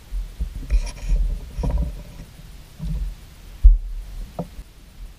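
Irregular dull thumps and knocks as a small pot of craft paint is shaken and tapped upside down over a plastic bowl to get the paint out, with one sharper knock about three and a half seconds in.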